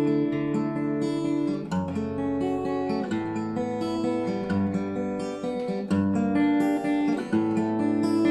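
Acoustic folk guitar playing a chord progression, one voicing of the progression, with a new chord about every second and a half and the notes ringing on between changes.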